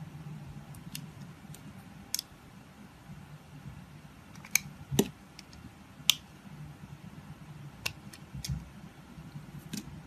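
Snap-off utility knife blade shaving thin curls off a bar of translucent soap, giving scattered sharp crackling clicks at irregular intervals, the loudest about halfway through.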